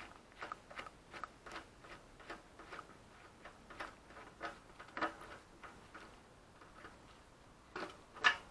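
Ratchet spanner clicking while undoing the fuel tank's rear mounting bolt: a run of light, evenly spaced ticks, about two to three a second, with one louder click near the end.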